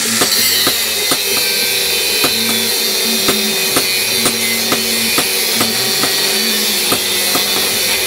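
Angle grinder with an abrasive cut-off disc cutting a flat steel bar: a steady, loud, high grinding hiss. Background music with about two drum beats a second plays over it.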